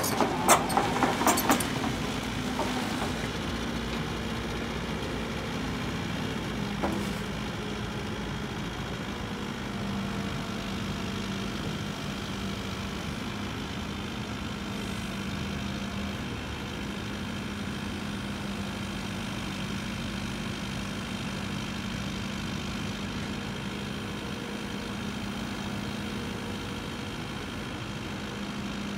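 CAT 308E2 CR mini hydraulic excavator's diesel engine running at a steady pitch while the machine works its boom and bucket. A quick run of clattering knocks sounds in the first two seconds, and a single knock about seven seconds in.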